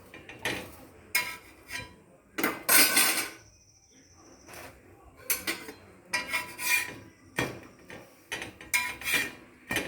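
Metal utensil knocking and scraping on a tava as a bread sandwich is turned and pressed while it toasts: irregular clatters, loudest about two and a half seconds in.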